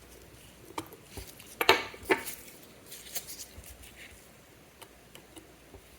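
Small metal watchmaking tools clicking and tapping against a mechanical watch movement: a few sharp, separate clinks, the loudest two close together about two seconds in, with fainter ticks after.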